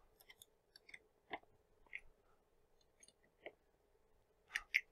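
Sparse, faint metallic clicks and taps of screws being hand-tightened with a small key, clamping steel plates, with a couple of louder clicks near the end. A faint steady hum runs underneath.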